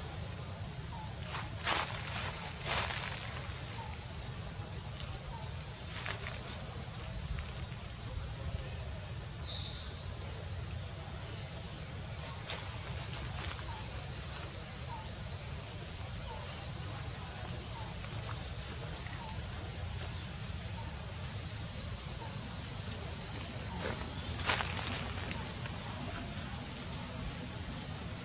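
Dense insect chorus: a steady, high-pitched buzzing drone that never lets up, with a few faint clicks over it.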